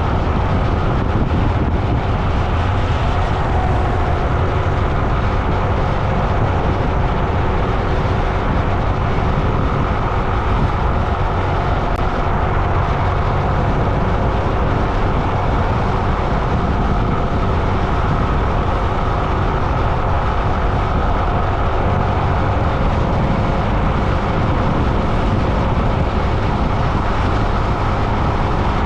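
Steady, loud road noise of a vehicle in motion, a continuous low drone with a faint hum of steady tones running through it.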